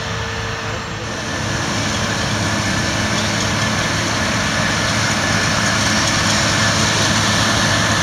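Claas Lexion combine harvester running under load while harvesting: a steady heavy engine and machinery drone that changes about a second in and then grows gradually louder.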